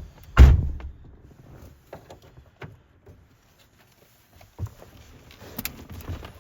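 Handling noises as an OBD scan tool is plugged in inside a truck cab: one loud thump about half a second in, then scattered light clicks and knocks, with a smaller thump later on.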